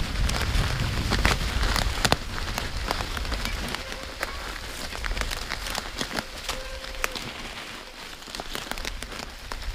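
Mountain bike tyres rolling over a leaf-covered forest trail: a steady crackling rustle with many scattered clicks, louder with a low rumble for the first couple of seconds.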